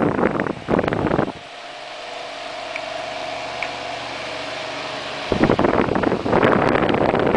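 Wagner A1452 desk fan running at its only speed. A steady motor hum and blade whir comes through on its own for a few seconds in the middle. For about the first second, and again from about five seconds in, loud gusting noise covers it, as the fan's air strikes the microphone.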